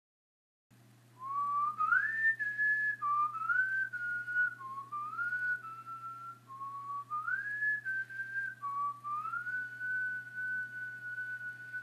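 A person whistling a slow tune in five phrases, each sliding up into a held note, the last note held long, over a steady low hum.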